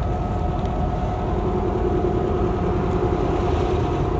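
Air-cooled flat-four engine of a 1971 Volkswagen dune buggy running steadily under way, a constant low drone with road noise heard from the open-top seats.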